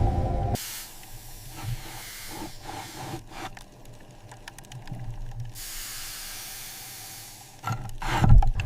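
Soft hissing and rushing noise with scattered faint clicks, brightening into a higher hiss for about two seconds. A loud low thump with a crackle comes near the end.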